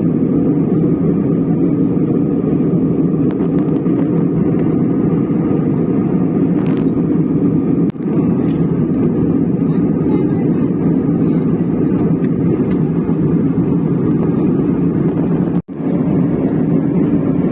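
Steady, deep cabin noise of a jet airliner in flight: engine and airflow drone, even throughout, with a brief dropout near the end.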